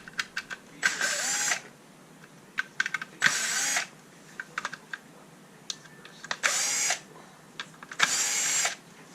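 Cordless powered screwdriver running in four short bursts, each under a second, backing screws out of a plastic RC car gearbox, with small clicks and taps of plastic parts and screws being handled between the runs.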